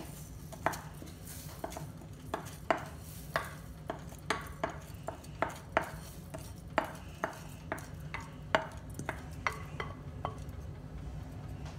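Wooden spoon pushing washed rice out of a glass bowl into an aluminium pressure cooker of masala liquid and stirring it in. Sharp, irregular knocks of the spoon against the bowl and pot come about two a second.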